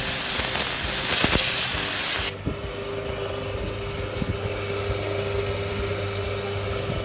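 KOKORO electric high-pressure washer firing a pencil-thin 0-degree jet at paving stones: a loud water-jet hiss that cuts off suddenly about two seconds in. The machine's motor and pump then run on with a steady hum.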